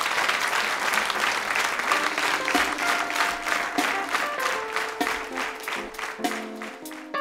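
Studio audience applauding, the clapping gradually thinning out. A melody of short instrumental notes begins about two seconds in and carries on under the clapping.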